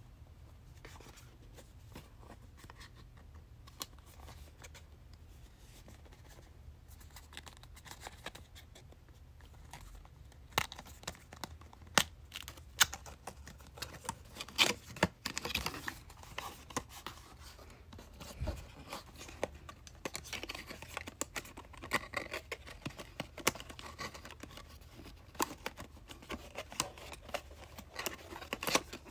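Hands opening a small cardboard webcam box: fingernails scratching and picking at the cardboard and its clear plastic hanger tab, with sharp clicks and some tearing. Sparse at first, much busier from about ten seconds in.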